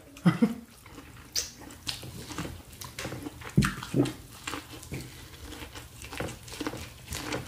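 Close-miked eating of a seafood boil: wet lip smacks, sucking and chewing as corn on the cob and shrimp in butter sauce are eaten, in short irregular clicks. One low thump about three and a half seconds in.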